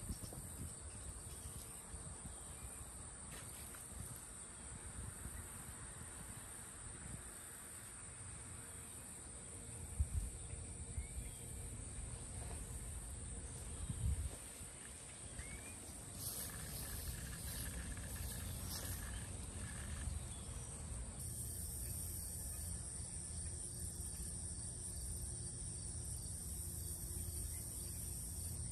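Steady high-pitched drone of insects, with a low rumble underneath and a couple of short thumps about ten and fourteen seconds in.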